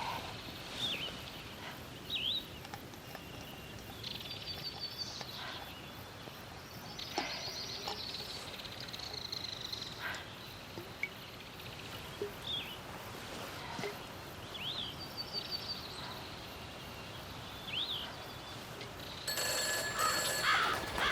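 Birds chirping, with short sweeping calls and a few quick trills, over a steady background hiss. Near the end a telephone bell starts ringing, which fits the phone booth's phone.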